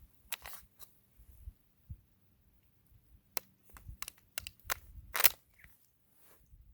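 A run of irregular sharp clicks and knocks, like objects being handled. The knocks bunch together between about three and five seconds in, and the loudest comes a little after five seconds.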